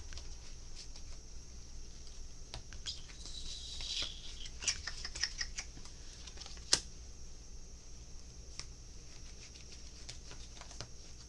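Tarot cards being shuffled and handled: soft riffling with a run of light clicks and taps, busiest a few seconds in, and one sharper tap near the middle. A faint steady hiss and hum sit underneath.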